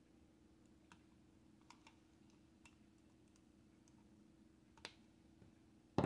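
Faint, scattered sharp clicks of small cutters or pliers working against a die-cast toy truck's metal chassis and axle, about five spread over a few seconds. A louder click comes near the end and a much louder knock comes right at the very end.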